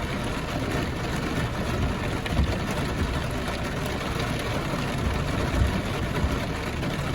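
Pickup truck engine idling under steady rain, a constant rushing noise with a low rumble and a few soft low thumps.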